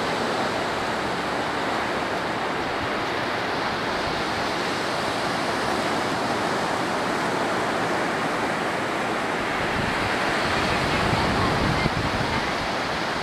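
Steady wash of ocean surf breaking on the beach, with wind on the microphone.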